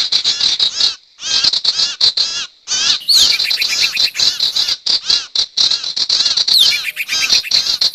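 Recorded lure calls of the sirtu bird: a fast, loud chattering of high chirps, many a second, with two brief breaks early on. A sharply falling slurred note comes about three seconds in and again near the end.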